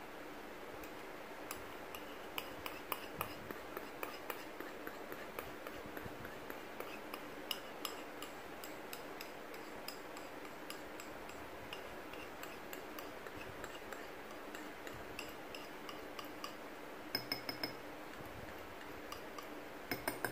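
Light, scattered clinks and scrapes of a utensil against a ceramic mixing bowl as thick chocolate batter is scraped out into a ramekin, with a cluster of quick clicks near the end.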